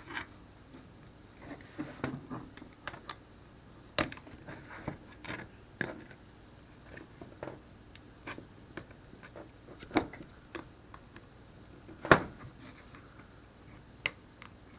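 Scattered small clicks and taps of tools and plastic parts being handled while a BlackBerry Curve 8520 phone is taken apart, with a few sharper knocks spread through, the loudest about twelve seconds in.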